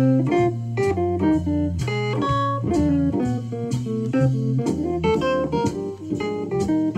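Akai EWI (electronic wind instrument) playing a fast swing jazz solo, a running line of quick notes, over an organ-trio backing track with a moving bass line and drums.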